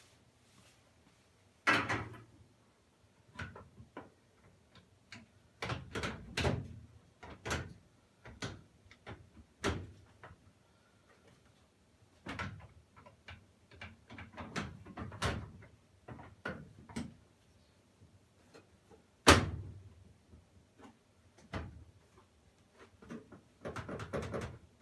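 Irregular knocks and clunks of a front-load washer's cabinet being handled and its panels refitted, with a sharp bang about two seconds in and the loudest one about three-quarters of the way through.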